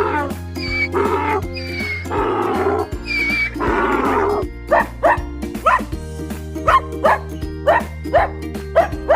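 A dog barking over background music: long drawn-out calls in the first half, then a quick run of short barks, about two a second.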